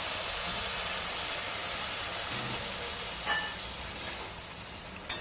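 Hot water poured into a steel pan of spiced, fried val (hyacinth bean) dal, sizzling with a steady hiss that slowly dies down. A spatula knocks against the pan about three seconds in and again near the end.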